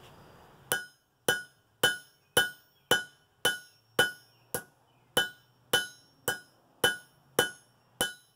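Blacksmith's hand hammer striking hot steel on an anvil to flatten it: a steady run of fourteen blows, about two a second, each with a bright ringing clang. The blows begin just under a second in.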